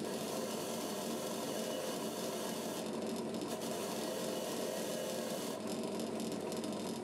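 Bench drill press running with a wire wheel in its chuck, a small part held in locking pliers against the spinning wire brush: a steady scratching of wire on metal over the motor's hum, cleaning the part up.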